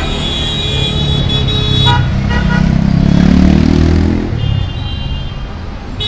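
Busy street traffic: a vehicle horn sounds for about the first two seconds, then a motor vehicle passes close with its engine rising in pitch, and horns sound again near the end.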